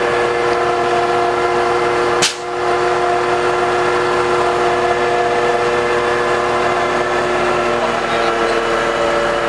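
Steady machine hum holding several even pitches throughout, with a single sharp click about two seconds in.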